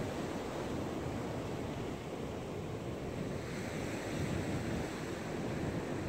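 Ocean surf breaking and washing in a steady rush, with wind on the microphone.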